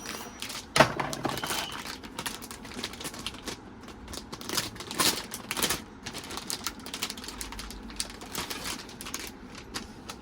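Hands handling computer hardware and its packaging: irregular clicks, taps and rustling, with a cluster of louder clicks about halfway through.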